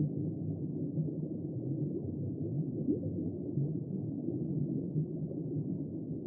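Steady, muffled low rumbling noise with no separate events, all of it in the low and middle range.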